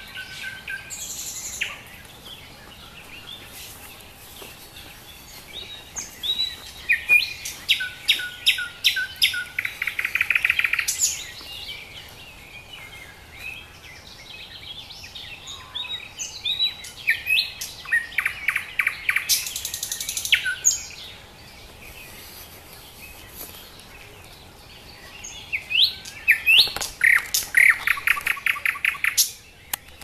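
Small songbird singing: three song phrases about ten seconds apart, each a quick run of clear notes that ends in a fast trill, with fainter chirps in between.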